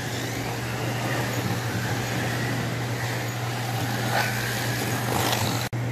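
Mini Cooper slot cars (Ninco and Scalextric) running round a multi-lane track, their small electric motors whining past, with a couple of quick passes near the end. A steady low hum lies under it, and the sound drops out for an instant just before the end.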